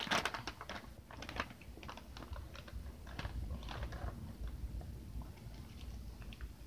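Hands handling and opening a cardboard-and-plastic toy package: a scatter of small clicks, taps and rustles, densest right at the start.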